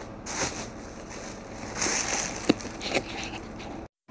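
Clear plastic wrapping rustling and crinkling as a sneaker and its shoebox are handled, with a couple of sharp knocks about two and a half and three seconds in. The sound cuts off suddenly just before the end.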